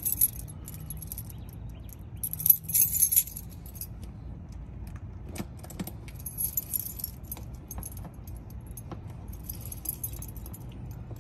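A bunch of keys jangling in several short bursts while a key is picked out and a lock is fastened on a security cable, over a steady low hum.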